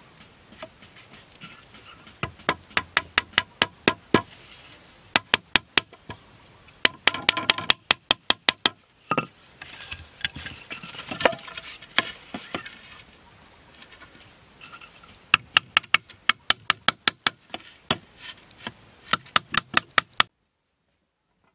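A wooden mallet knocking a peg into a joint of green bamboo poles: runs of sharp knocks, about four or five a second, with short pauses between runs. The knocking cuts off suddenly near the end.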